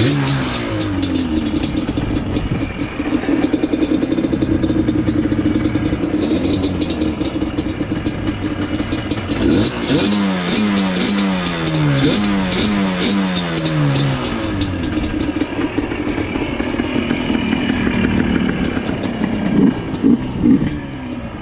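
Two-stroke ATV engine running and being revved, with a series of about five quick throttle blips, each falling back in pitch, about ten seconds in.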